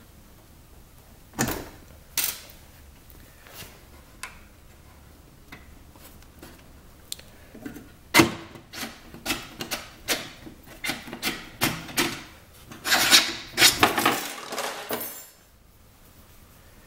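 Spring-loaded steel latch rod on a zero-turn mower's plastic chute block, worked by hand: two sharp metal clicks, then after a pause a quick run of clicks and knocks. Near the end come a couple of seconds of scraping and rattling as the plastic block comes away from the steel deck.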